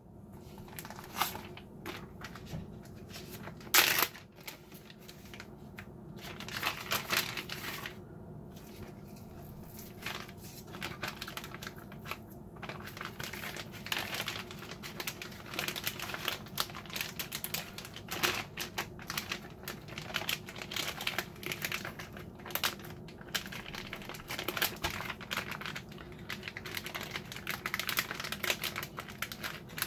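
Plastic zip-top freezer bag crinkling and rustling as a raw steak is slid into it and the bag is pressed and zipped shut by hand, with one louder sharp crackle about four seconds in.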